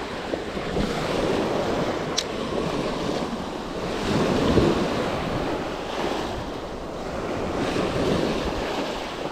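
Small waves breaking and washing up over shallow sand at the shoreline, swelling and easing in surges, loudest around the middle. Wind buffets the microphone throughout.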